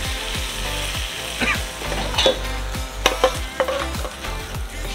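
Chicken in masala sizzling in a steel frying pan over a gas burner, while a long metal spatula stirs and scrapes against the pan, with a few sharp scrapes and clanks.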